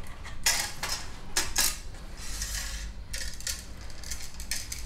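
Light metallic clinks, knocks and a brief rustle as the screen's bottom channel pieces are worked loose and handled.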